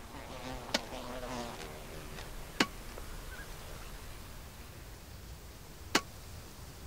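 An insect buzzing with a wavering pitch for the first couple of seconds, over a low outdoor background. Three sharp clicks fall at scattered moments.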